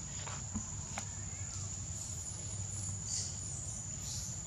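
Steady outdoor background: a constant high-pitched whine over a low rumble, with a few light clicks and rustles.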